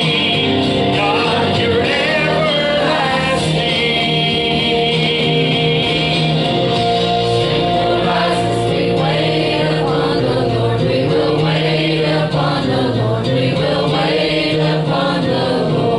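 Church choir singing a gospel song together, led by a man singing at a microphone.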